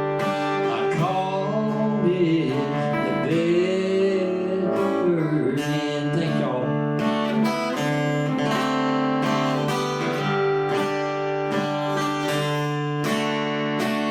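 Live acoustic guitar music: strummed chords ring steadily, with a gliding, bending melody line over them in the first few seconds.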